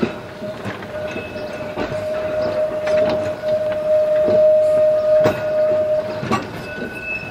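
Heritage electric tram running along the track: a steady motor whine, with a sharp click roughly every second as the wheels pass over rail joints.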